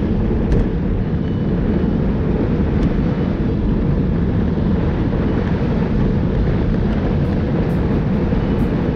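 Wind rushing over the microphone of a bike-mounted camera on a fast downhill ride at about 65–70 km/h, with tyre and road noise: a steady low rumble that holds at the same level throughout.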